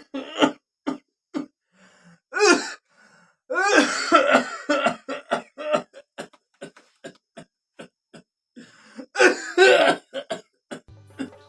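A man coughing hard in repeated fits: many short coughs in quick succession between several long, harsh, voiced hacks, with throat clearing.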